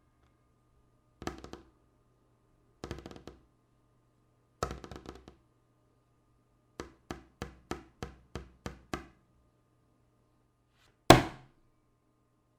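Knocks and thumps on a table: three short rattling clusters of hits, then a run of eight evenly spaced knocks, then one much louder single thump, like a fist punching the table, near the end.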